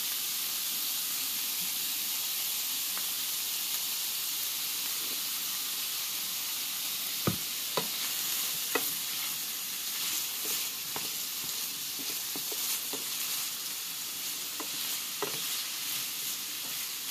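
Stir-fry vegetables sizzling in hot olive oil in a frying pan, with a steady hiss. From about seven seconds in, a wooden spoon knocks and scrapes against the pan as the vegetables are stirred, more often toward the end.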